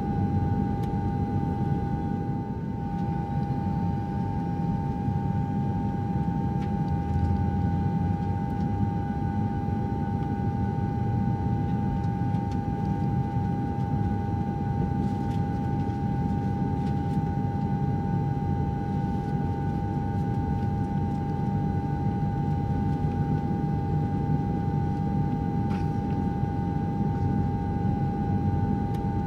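Steady cabin noise of a jet airliner in cruise: a low rumble of engines and airflow with a steady mid-pitched hum on top.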